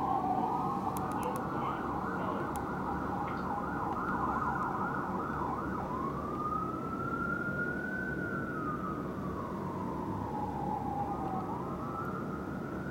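Fire engine siren running a fast yelp, then changing about six seconds in to a slow rising-and-falling wail that starts climbing again near the end. A low steady city rumble runs beneath.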